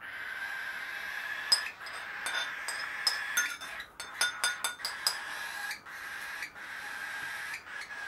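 Baby cockatiels giving steady raspy begging calls, the hunger calls of chicks waiting to be hand-fed. Through the middle of this, a metal spoon clinks a string of times against a ceramic bowl as the feeding formula is stirred.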